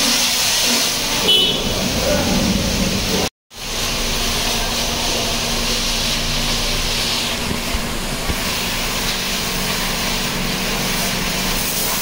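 Car wash background noise: a steady hiss with a constant low machine hum, and voices in the first few seconds. The sound cuts out completely for an instant a few seconds in.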